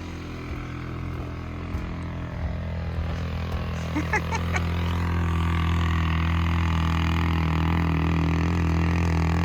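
Small four-wheeler (mini ATV) engine running with a steady hum, getting louder about halfway through.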